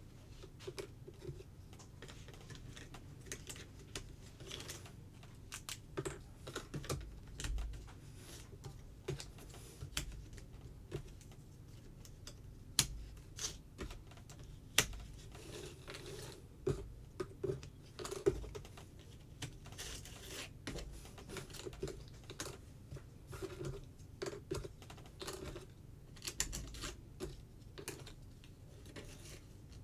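Jigsaw puzzle pieces being handled, picked up and set down on a wooden tabletop: a run of light, irregular clicks and taps.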